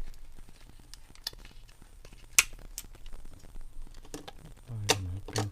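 Sharp plastic clicks and handling as the battery cover and battery are taken out of a cordless phone handset, the loudest click about halfway through.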